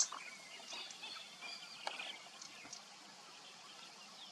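Small birds chirping and calling faintly in short twittering notes, with a sharp click at the start and another about two seconds in.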